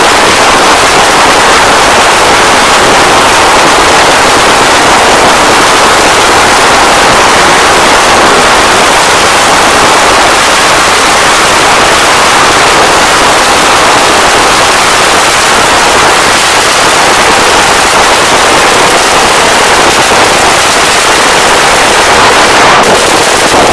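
A string of firecrackers going off in a rapid, unbroken crackle of bangs, very loud.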